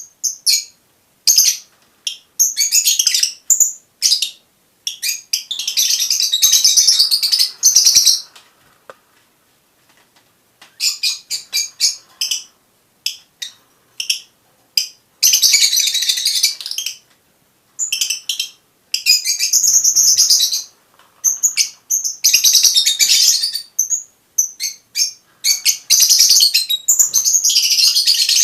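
Fischer's lovebird calls: shrill, high-pitched chattering and chirping in bursts of a second or two, broken by short pauses.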